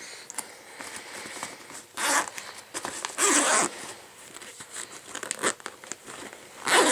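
Zipper of a soft fabric goggle case pulled open in several short rasping strokes, with handling of the case between them.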